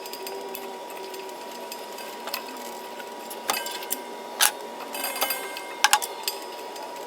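Sped-up work sounds of heavy electrical wire being stripped and fastened to terminals: scattered quick clicks, taps and small knocks of wire and hand tools over a steady thin hum.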